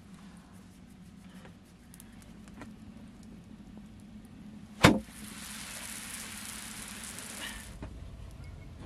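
Small wood fire crackling with scattered light clicks. About five seconds in comes a single sharp knock, the loudest sound, then a steady hiss for about three seconds that stops suddenly.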